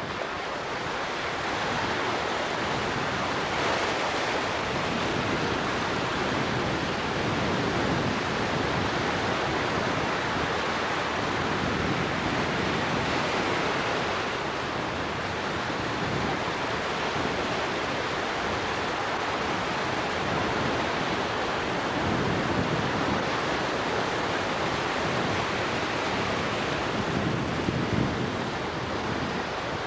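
Ocean surf breaking and washing in the shallows: a steady, continuous rush of waves.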